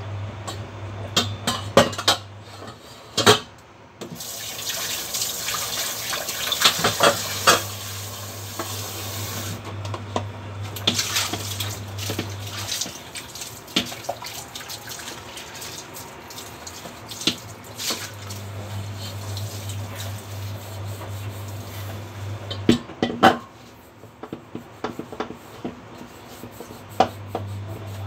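Kitchen tap running into a stainless steel saucepan at the sink for several seconds, with sharp clinks and knocks of the pot and utensils against the sink as it is washed out by hand.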